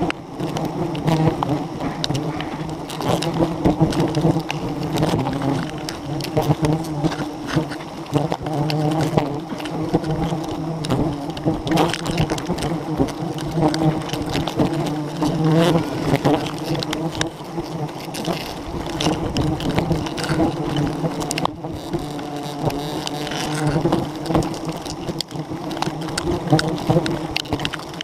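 A swarm of wild honeybees buzzing close around the microphone. The drone is loud and continuous, wavering in pitch as single bees fly past, with scattered light clicks of handling.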